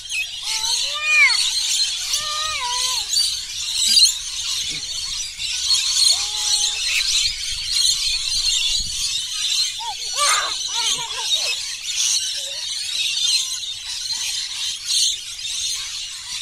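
A large flock of rainbow lorikeets screeching and chattering without a break, a dense high-pitched racket of overlapping short calls.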